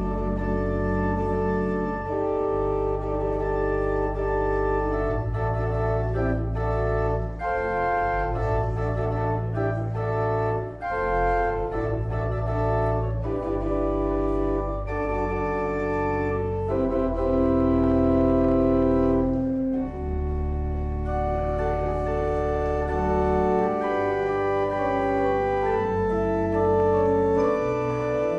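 Church organ playing slow, sustained chords over held bass notes, the chords changing every second or two.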